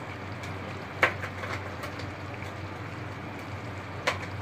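Steady hiss and low hum of a pot of vegetables cooking on a stove, with two sharp clicks, one about a second in and one near the end.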